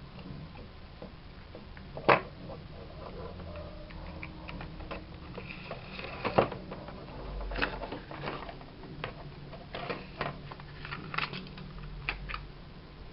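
Network jack being fitted into its small plastic box: scattered plastic clicks and handling noises, the sharpest click about two seconds in and another a little after six seconds.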